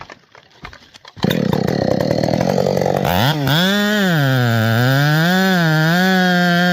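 Husqvarna 572 XP chainsaw running at high revs, starting loud about a second in. Its engine pitch dips and recovers several times, then holds steady at full throttle.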